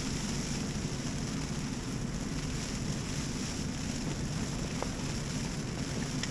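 Storm wind buffeting the nylon rainfly of an REI Half Dome 2 Plus tent, heard from inside: a steady low rumble with a hiss over it.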